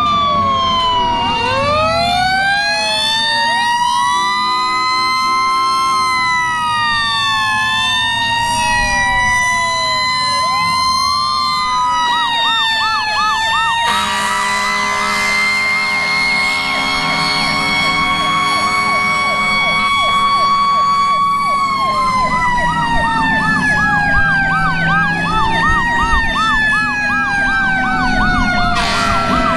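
Several fire engine sirens sounding at once, rising and falling in slow overlapping glides. About twelve seconds in, a faster yelping siren joins, cycling a few times a second. For several seconds midway a harsh, noisy layer sits over the sirens.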